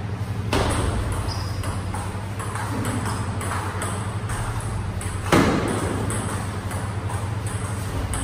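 Table tennis rally: the celluloid ball clicking off the paddles and bouncing on the table in a steady back-and-forth, with two louder hits about half a second in and about five seconds in, over a steady low hum.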